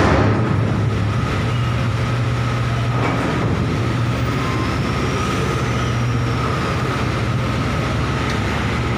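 Steady drone of heavy dockside machinery during container loading onto a ship: a strong low hum with a thin higher whine above it.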